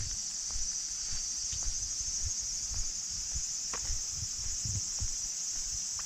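A steady, high-pitched chorus of insects in the forest, with the walker's footsteps thudding on the paved path about twice a second.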